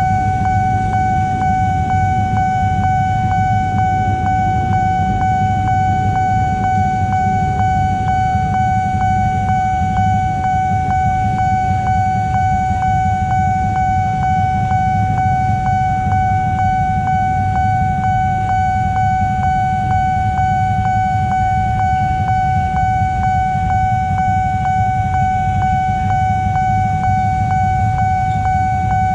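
Nippon Signal electronic level-crossing alarm ringing: a loud, steady, high bell-like tone that pulses rapidly and evenly. Underneath it, a low rumble of idling motorcycle engines waiting at the crossing.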